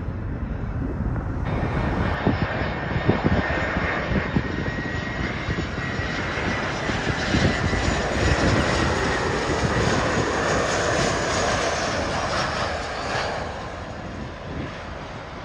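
Fixed-wing aircraft's engines passing by: a loud rush of engine noise with a deep rumble that swells to a peak around the middle and then eases off, with a faint high whine over it in the first half.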